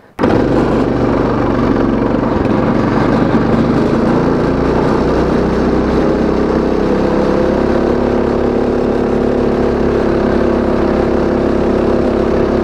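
Go kart's Predator 212 single-cylinder engine running hard at a steady high speed while driving, starting abruptly a moment in.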